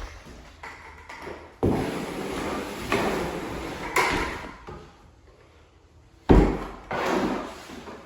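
Work noise on a wooden subfloor: stretches of scraping and rustling, a sharp knock about four seconds in and a heavy thump a couple of seconds later.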